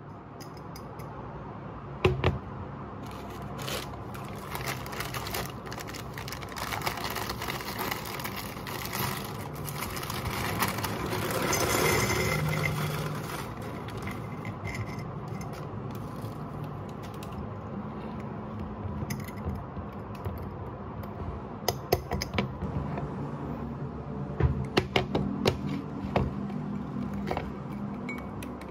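Glass jars and a glass food container with a snap-on plastic lid handled on a glass-topped kitchen counter: clinks, knocks, scrapes and clicks. There is a sharp knock about two seconds in and a run of clicks and knocks near the end.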